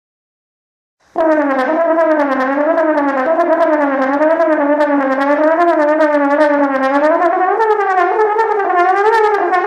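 Solo trombone playing a slow, smoothly connected melody, the pitch gliding up and down in gentle waves. It starts about a second in and rises to a higher held note near the end.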